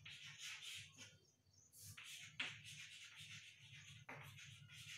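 Chalk writing on a chalkboard: faint, short scratchy strokes as the letters are formed, with a couple of sharp taps as the chalk strikes the board.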